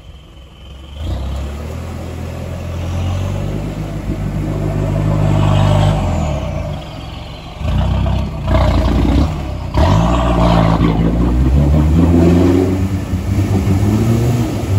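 Pickup truck engine revving hard in repeated surges as the truck churns through a deep mud hole, tyres throwing mud. The revving starts about a second in and rises and falls several times, dipping briefly between pushes.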